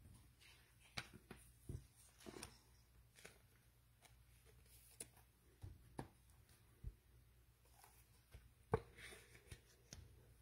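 Near silence broken by scattered faint taps and clicks of trading cards being handled.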